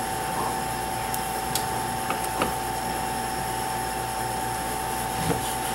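A large knife cutting through a stack of corn tortillas on a wooden board, giving a few light knocks. Under it runs a steady hum with a constant high whine.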